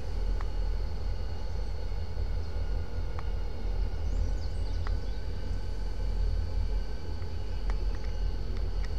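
Diesel locomotive idling at a distance: a steady low rumble with faint steady high-pitched whines, and a few faint clicks.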